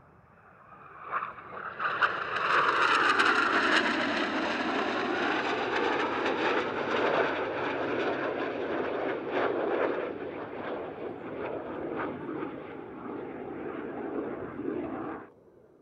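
Canadair NF-5 jet fighter's twin General Electric J85 turbojets in a fly-past. The jet noise swells over the first two seconds, drops in pitch as the aircraft passes, then runs on loud and crackling before cutting off suddenly near the end.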